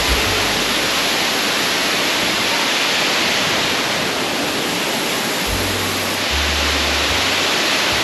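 Waterfall's loud, steady rush of falling water, with low deep notes coming in at the start and again from about two-thirds of the way through.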